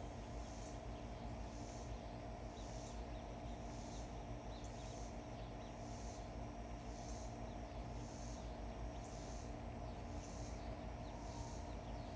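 Insects calling: a steady high-pitched drone with a pulsing call repeating about once a second, over a faint steady low hum.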